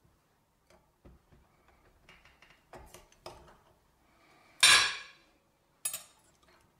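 Metal clicks, clinks and scrapes of a meat grinder being taken apart, the steel hole plate lifted off and a knife working the cross blade loose. It is mostly soft clicks, then a loud scrape a little past halfway and a sharp clink about a second later.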